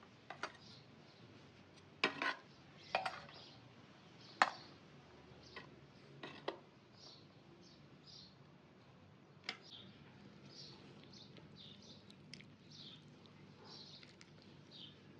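Utensils clinking against dishes now and then, about nine sharp clinks in the first two-thirds, with small birds chirping faintly throughout.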